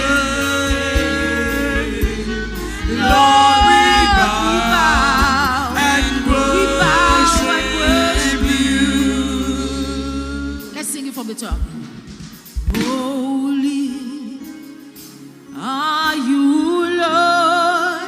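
Live gospel worship music: a lead singer holding long, wavering notes with vibrato over band accompaniment. The low bass drops out about ten seconds in, leaving the voice over lighter backing, which softens briefly and then swells again near the end.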